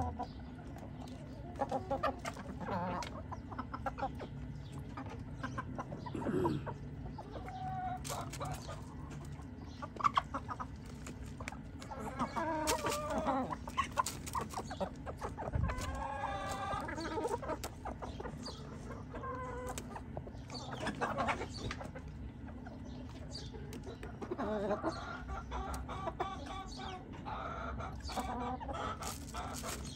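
A flock of chickens clucking and calling while feeding, with short pitched calls coming in groups every few seconds. Scattered sharp clicks of beaks pecking corn kernels off the bare ground sound between the calls.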